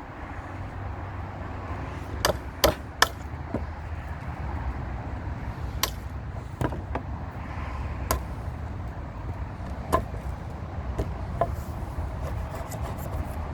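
Irregular sharp knocks of a hammer on timber, about seven in all, the loudest two close together about three seconds in, over a steady low hum.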